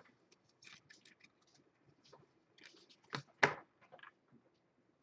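Trading cards being flipped through and slid against one another by hand, a faint scatter of papery rustles and light clicks, with two sharper taps a little after three seconds in.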